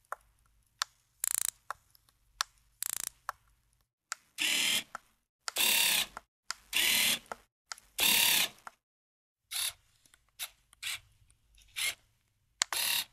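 Canon EOS 550D DSLR handling sounds: sharp mechanical clicks and short rattling click bursts, then four brief whirring runs of the lens autofocus motor about a second apart, then more clicks.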